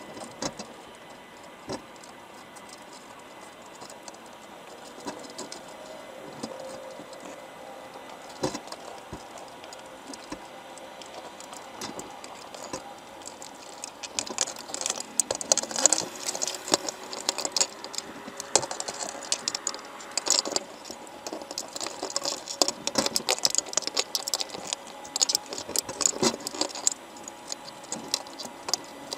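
Heard underwater, a patter of small clicks and taps as crabs crawl over each other, the bait and the wire trap, growing busier and louder about halfway through.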